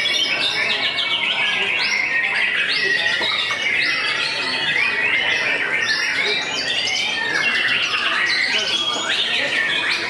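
White-rumped shama (murai batu) singing: a dense, unbroken stream of rapid short notes and quick pitch slides, with several birds' songs overlapping.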